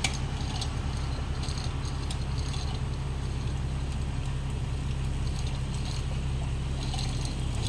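A steady low engine drone with a fast even pulse, like a motor idling, with a few faint clicks and rattles over it.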